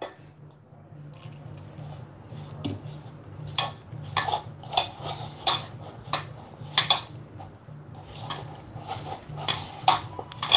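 Hand kneading stiff flour dough in a bowl. From about three seconds in there is a run of light clinks, roughly one every half second to second, from bangles and a ring knocking on the bowl with each stroke.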